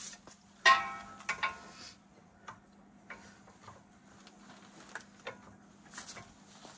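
Steel pry bar clanking against the front suspension, levered between the subframe mount and the steering knuckle to force the knuckle down and free the strut. One loud metallic clank with a short ring comes about a second in, followed by scattered lighter clicks and taps.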